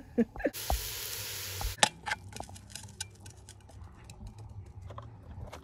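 A steady hiss lasting about a second, followed by light, scattered clinks and scrapes of a metal serving spoon against an aluminium pot of cooked greens.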